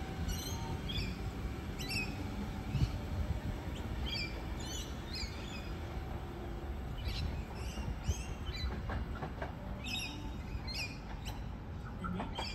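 Small birds chirping repeatedly in short, falling calls over the low rumble of a Sydney Trains Tangara electric train pulling away from the platform.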